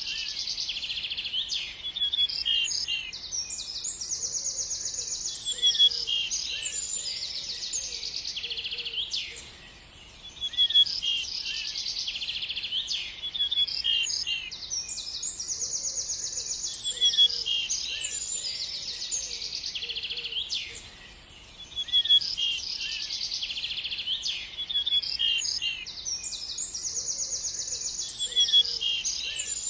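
Songbirds chirping and trilling, several calls overlapping, with fast rattling trills among short high chirps. The same stretch of birdsong repeats about every ten to eleven seconds, as a loop.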